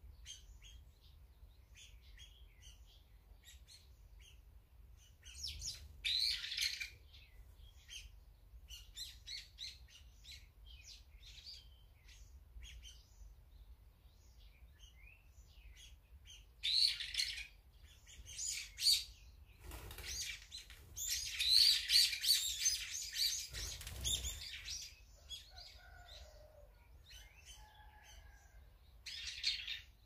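Small songbirds chirping in short groups of high calls, with a dense spell of chattering calls about two-thirds of the way through. Two soft low thumps fall inside that spell.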